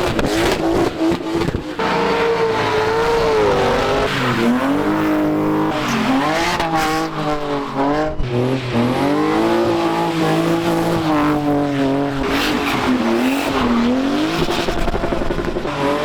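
Drift car engines revving, the pitch swinging up and down over and over as the cars slide, with tyres squealing.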